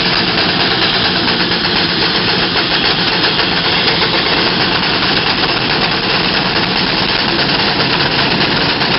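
Steam traction engine working hard under a heavy pull, its exhaust and running gear making a loud, steady, dense noise.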